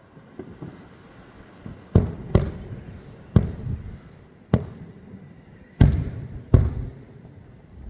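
Fireworks going off: six loud bangs at uneven intervals, each followed by a low rumble as it dies away, with fainter pops in between.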